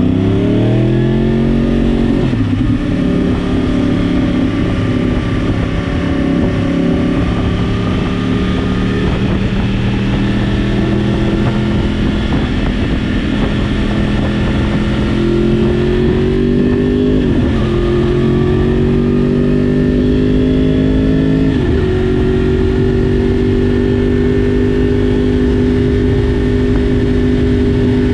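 2014 Yamaha R1's crossplane inline-four engine accelerating hard at first, then running at fairly steady revs while riding. Several upshifts break in as brief dips in pitch, after which the note climbs again.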